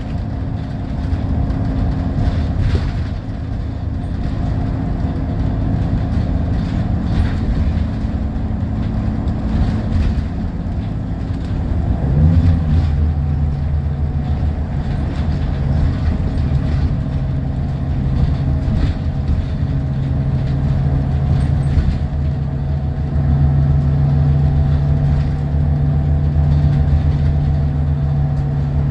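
Scania L94UB city bus with a ZF Ecomat automatic gearbox under way, heard from inside the passenger saloon: a steady engine and drivetrain drone with road noise. About twelve seconds in the engine note rises briefly and settles into a lower, steadier pull, which grows louder again later on.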